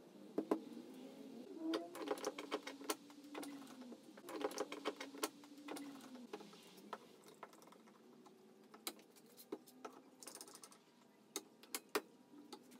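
Faint, repeated clicking of quick-release bar clamps being squeezed tight on a glued-up hardwood tabletop, mixed with light knocks and scrapes of wood and clamp bars being handled.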